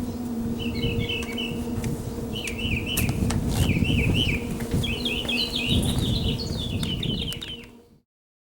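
Small birds chirping in quick repeated series over a steady low hum and rumbling background noise, with a few faint clicks; the sound fades out to silence near the end.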